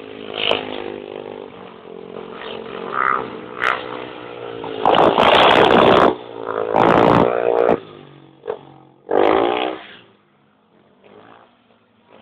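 Racing motorcycle engines revving and passing close by, the engine note rising and falling. The loudest passes come about five, seven and nine seconds in, and all of it is heard thinly through a mobile phone's microphone.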